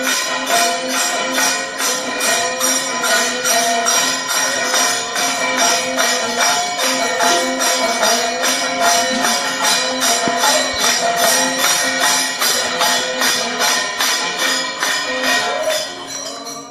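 Temple aarti accompaniment: ringing metal percussion struck in a steady rhythm, about two or three strokes a second, over sustained held tones. It fades away near the end.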